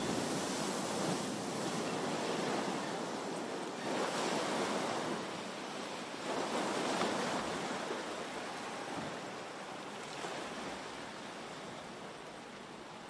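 Water rushing and splashing as the spray thrown up by a heavy test capsule's impact in a water basin rains back down and the churned surface surges, in uneven swells that slowly fade.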